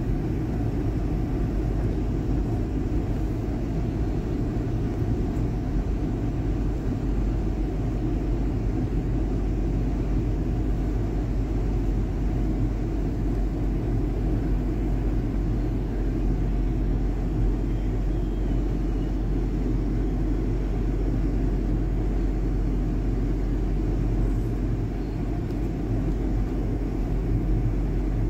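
Steady low rumble of vehicle engines in slow traffic behind snow-clearing motor graders, even throughout with no sharp knocks or horns.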